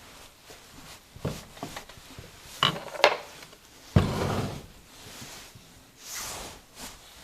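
Metal engine parts and tools being handled on a workbench: scattered clinks and knocks, with a heavier thump about four seconds in.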